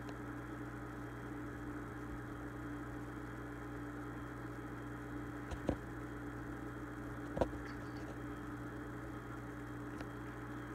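Steady low hum, with two brief knocks about two seconds apart near the middle as a cat eats kibble out of a food bucket.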